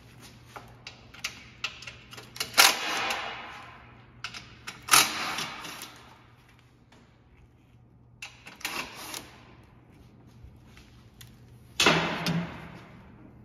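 Small cordless impact driver zipping out 10 mm skid plate bolts in four short bursts a few seconds apart, with light clicks and taps of bolts and plastic between.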